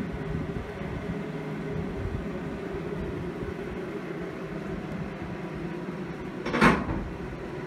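A yellow Labrador puppy gives one short, loud sneeze about two-thirds of the way in, over a steady low machine hum.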